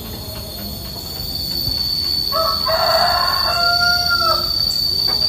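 A rooster crows once, beginning a little over two seconds in and lasting about two seconds, with a falling tail. A steady high-pitched whine runs underneath.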